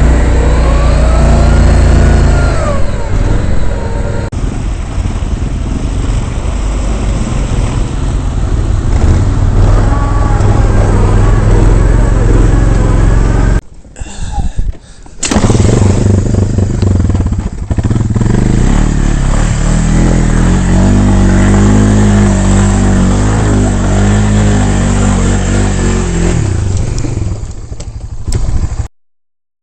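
ATV engine running hard and revving up and down while the machine ploughs through deep mud. The sound breaks off briefly about halfway, then repeated revs follow in the second half.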